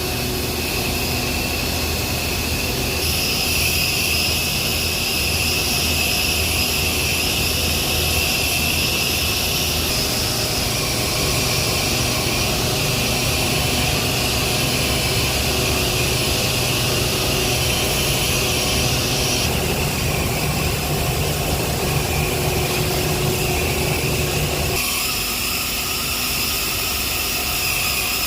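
Steady hum of heavy power-plant machinery with high, steady whining tones over it. The character changes abruptly several times, as if switching from one machine to another.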